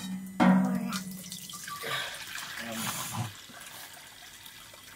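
Water sloshing, dripping and trickling as rice is rinsed by hand in a small metal pot and the cloudy rinse water is poured off into a wok. About half a second in, a short steady-pitched voice-like call is the loudest sound, with a shorter falling one near the middle.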